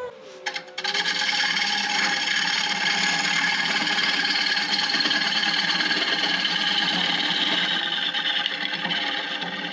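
Bowl gouge cutting into a wooden bowl blank spinning on a wood lathe: a steady scraping cut that starts about a second in and stops just before the end, over the lathe motor's steady hum.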